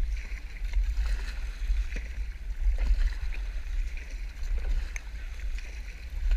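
Kayak paddling: water splashing and trickling off the paddle blades with a few faint knocks, over a loud buffeting low rumble on the microphone.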